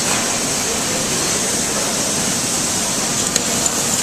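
Welding arc running steadily with a continuous crackling hiss.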